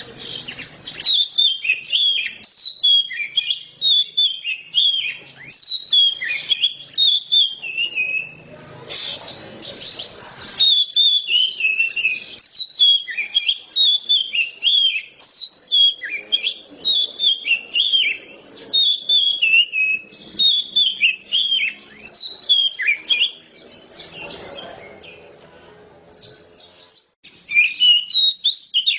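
Oriental magpie-robin (kacer) singing a long, unbroken run of quick chirping, whistled phrases, pausing briefly near the end.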